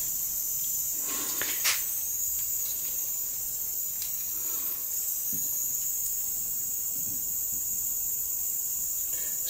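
A steady high-pitched hiss, with a few faint clicks in the first few seconds.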